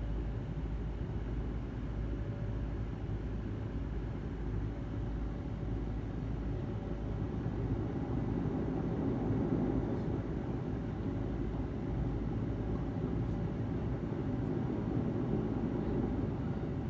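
Dash 8-100 turboprop engines and propellers heard from inside the cabin during taxi: a steady low drone with a constant hum running through it, swelling slightly about halfway through.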